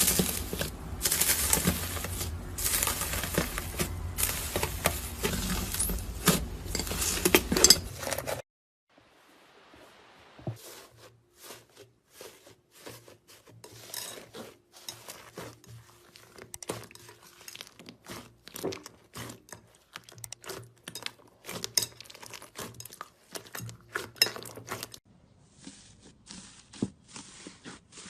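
Slime being squished and stretched, with crackling and popping clicks. It is loud and dense for the first eight seconds, then changes to sparser, quieter pops and clicks.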